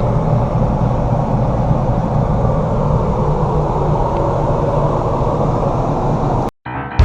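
Forest River R-Pod RP177 travel trailer's air conditioner running: a steady low drone with a faint hiss of air. It cuts off suddenly near the end.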